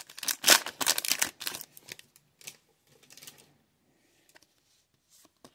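Foil trading-card pack wrapper crinkling as it is torn open and the cards are slid out, a run of crackly bursts over the first second and a half, then a few light clicks of cards being handled.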